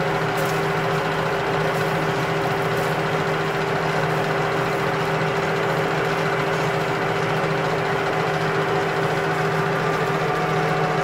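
Metal lathe running with a steady mechanical hum from its motor and gearbox, with a few faint ticks in the first few seconds.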